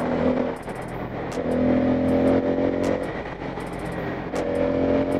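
Bajaj Pulsar N250 single-cylinder motorcycle engine running while riding, its steady pitched note coming in for stretches of a second or so and easing off again between them, over a low road rumble.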